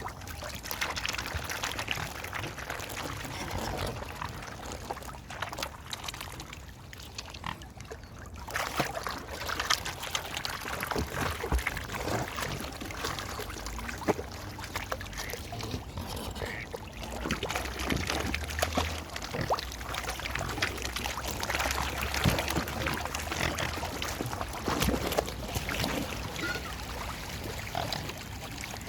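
Swans and other waterfowl feeding in shallow water: constant small splashes and sloshing as bills work the surface, mixed with the birds' calls.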